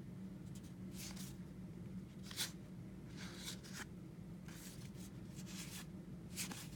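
Baseball trading cards being handled and slid past one another as they are flipped through: soft brushing strokes every second or so over a low steady hum.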